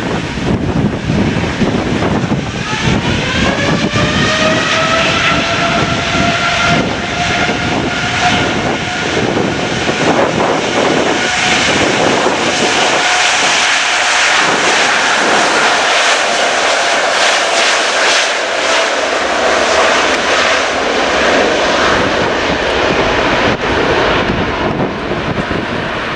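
Boeing 787-8 Dreamliner's jet engines spooling up to take-off power. A whine rises in pitch a few seconds in, then holds steady as the airliner accelerates down the runway on its take-off roll.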